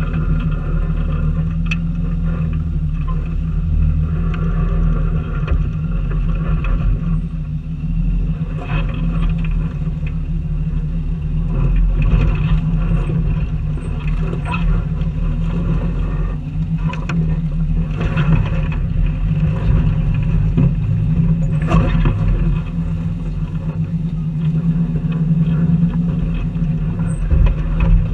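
Four-wheel-drive vehicle's engine running steadily at low revs while crawling over a rocky trail, with the tyres crunching over rock and several sharp knocks, the loudest about three-quarters of the way through.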